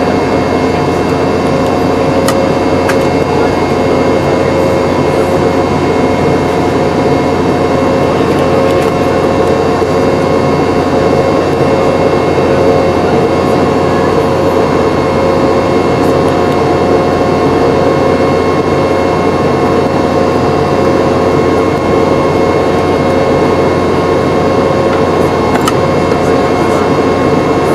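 Steady cabin noise of a Boeing 717-200 in flight, from its tail-mounted Rolls-Royce BR715 turbofans: a constant rush of air and engine noise with several steady whining tones, heard from inside the cabin.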